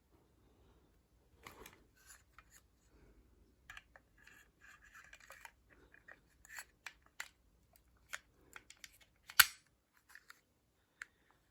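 Metallic clicks and rattles of a small automatic starting pistol being handled, with one much sharper, louder crack about nine seconds in.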